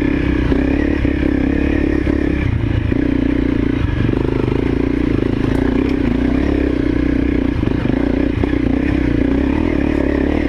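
Honda CRF250L's single-cylinder four-stroke engine running steadily in first gear, climbing a rocky uphill trail, with rocks clattering under the tyres.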